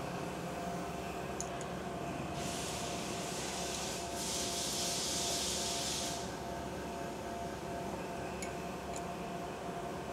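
Steady hum of an idling CNC mill-turn machine, with a few faint steady tones. A hiss comes in about two seconds in and lasts until about six seconds, broken briefly near the four-second mark.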